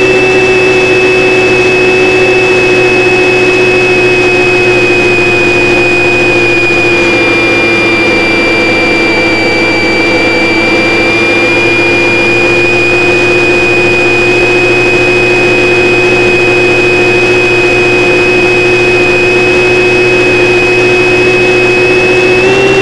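RC model airplane's motor and propeller heard from the camera on the airframe, running steadily in cruise with a high whine over the drone. The pitch sags slightly midway and comes back up.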